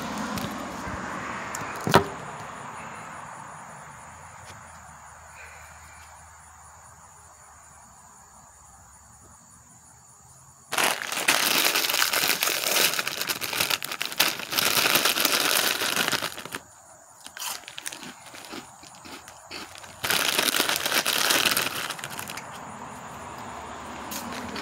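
Cheetos snack bag crinkling as it is handled and dug into, in a long loud stretch starting about halfway through and another near the end. A single sharp knock comes about two seconds in.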